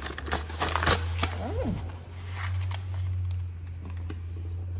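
Paper mail rustling with small clicks of handling at a metal post office box, over a steady low hum. A short vocal sound comes about a second and a half in.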